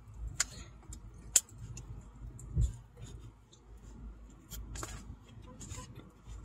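Someone biting and chewing a slice of pizza, with a few sharp mouth clicks and smacks and small rustles, over a low steady hum in a car cabin.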